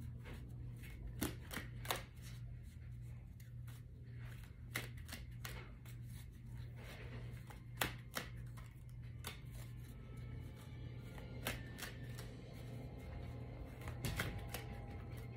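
Tarot cards being shuffled and handled: a scatter of soft flicks and taps at an uneven pace.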